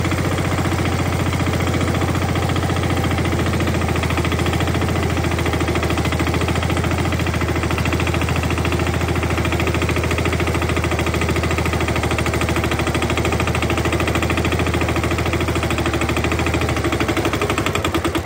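Mahindra Yuvraj 215 tractor's single-cylinder diesel engine running steadily as the tractor drives, a fast, even chugging beat.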